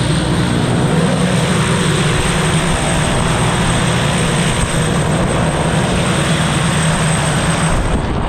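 Propeller engine of a small skydiving plane running steadily during the climb, a loud drone with a rushing noise over it. The low engine hum drops away near the end.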